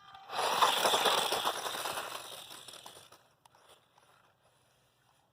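Losi Mini-T 2.0 RC truck driving over dirt, its knobby tires giving a gritty scraping rattle. It starts suddenly and fades away over about three seconds.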